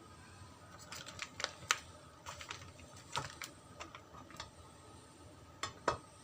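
Irregular light clicks and taps of hard objects, about a dozen over a few seconds, with two louder knocks close together near the end.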